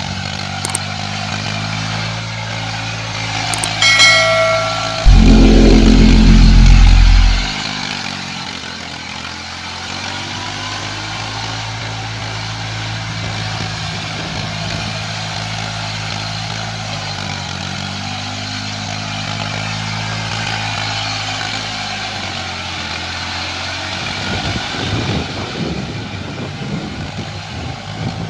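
Eicher 480 tractor's diesel engine running steadily while pulling a rotary tiller through wet mud. About four seconds in there is a brief chime-like tone, then a much louder low sound for about two and a half seconds.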